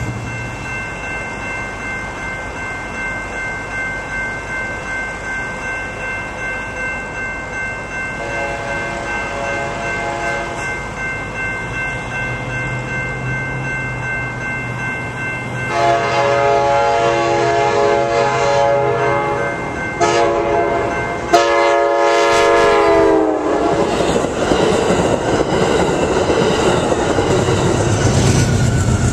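Railroad crossing bell ringing steadily while an approaching Amtrak Pacific Surfliner passenger train sounds its horn in the long, long, short, long grade-crossing signal, the last blast dropping in pitch as the train reaches the crossing. The train then rolls past with wheels clacking over the rail joints.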